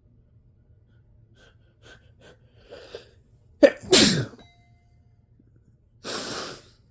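A woman sneezing once, loud and wet, set off by tickling her nose with a Q-tip: a few short catching breaths, then the sudden sneeze with a falling voiced cry. A short breathy sound follows near the end.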